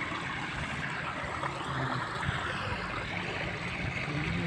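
Steady outdoor background hiss with no distinct events.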